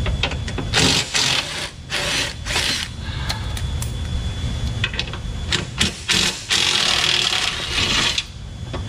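Cordless impact tool running in short bursts, then one longer run near the end, backing the bolts out of a Ford Bronco Sport's factory skid plate.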